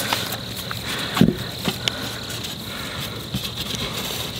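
Paracord being passed and pulled around the lashed sticks of a bushcraft pack frame: light rustling and small clicks, with a dull knock about a second in.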